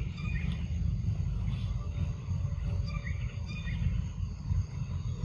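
Outdoor ambience: a steady low rumble with a few short, high chirps scattered through it.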